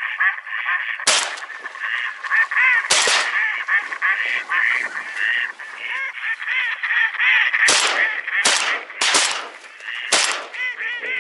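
A large flock of waterfowl calling continuously overhead, many short calls overlapping. About six shotgun shots ring out among the calls: one about a second in, one about three seconds in, and a quick cluster near the end.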